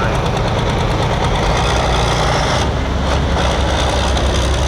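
Hot farm class pulling tractor's diesel engine running loud and steady with a heavy low rumble.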